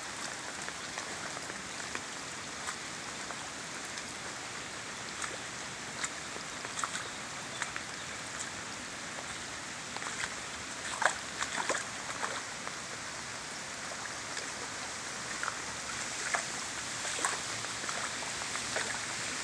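Steady rain, an even hiss, with scattered sharper drop taps now and then, a cluster of them a little past the middle.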